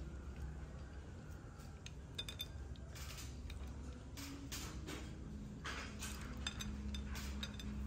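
A spoon clinking and tapping lightly against ceramic bowls and a plate, a few scattered clinks with a short ring.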